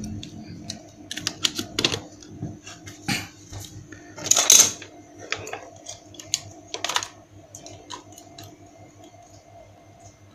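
Clicks and knocks of plastic parts being handled as a plug-in lamp holder with an incandescent bulb is pushed into a socket outlet, the loudest knock about halfway through, over a faint steady hum.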